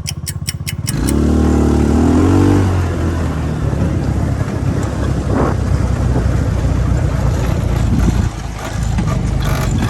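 Engine of a 200cc off-road go-kart idling with an even ticking, then revving up about a second in and pulling away, running steadily under load.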